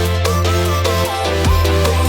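Electronic dance music with a heavy sustained bass and a steady drum beat.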